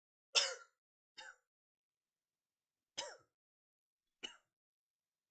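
Four short coughs at uneven intervals, the first the loudest: vocal coughing tics of Tourette syndrome.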